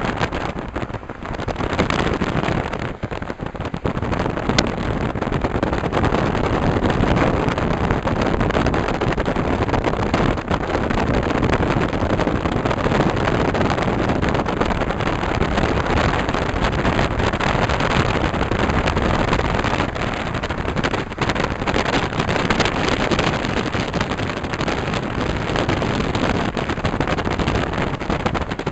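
Steady rush of wind and tyre noise from a car moving at highway speed, heard from inside the car.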